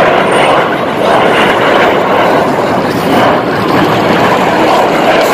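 Formation of aerobatic jet aircraft flying past overhead, their engines a loud, steady rushing noise.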